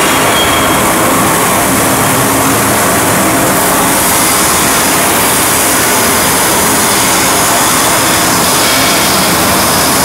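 Heat-treatment plant machinery running: a loud, steady rushing noise with a low hum underneath, unbroken throughout.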